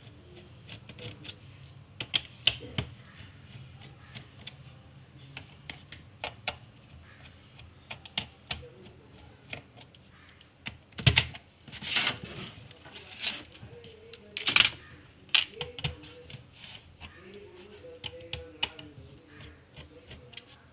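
Screwdriver clicking and scraping in the screws of a Dell Inspiron 3558 laptop's plastic base panel as they are undone, with a few louder knocks around the middle.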